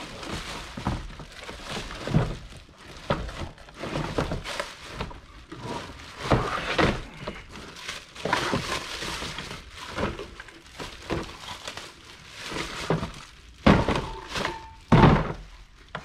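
Plastic bag crinkling and rustling while a heavy electric jackhammer is pulled out of it, with the tool knocking against its hard plastic carry case. A few heavy thunks come near the end, the loudest just before it stops.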